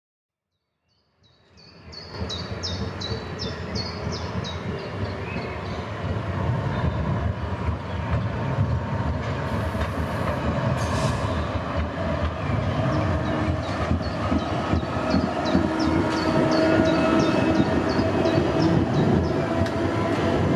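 GT8N articulated tram running past on street track, a steady rumble that slowly grows louder. A quick, regular run of high chirps comes in about a second and a half in, fades, and returns in the second half.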